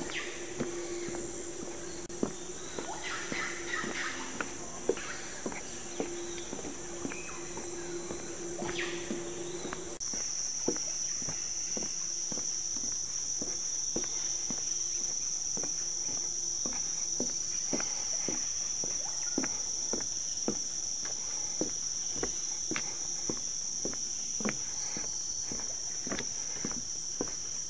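A steady high-pitched drone of rainforest insects, which changes pitch slightly and grows louder about ten seconds in. A lower hum stops at the same moment. Over it, footsteps knock on a wooden boardwalk at a walking pace, about two a second.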